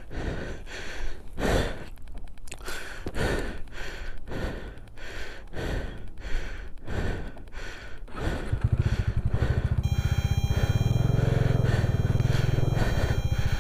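Short scuffing and knocking sounds about twice a second, then about eight seconds in a motorcycle engine comes on and runs with a steady low throb.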